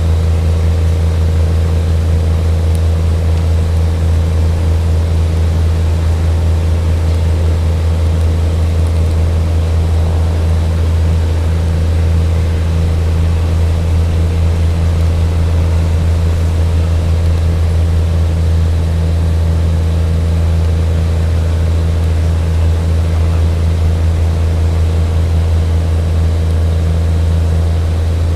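Train running, a loud, steady low drone that holds unchanged throughout.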